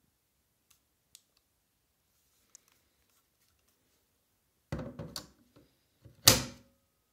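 Ryobi 18V lithium battery pack being pushed onto a Ryobi BCL14181H charger, plastic on plastic. A few faint clicks come first, then a short run of scraping knocks about five seconds in, and then one loud thunk as the pack seats in the charger.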